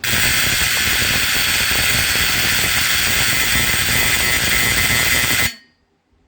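Simplex 4050 fire alarm horn, a 12-volt AC diaphragm horn, sounding continuously with a very loud, raspy buzz, then cutting off suddenly about five and a half seconds in.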